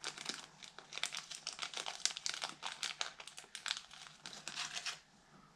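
A small clear plastic bag crinkling and rustling as fingers work it open to pull out a miniature part. The crinkling stops about five seconds in.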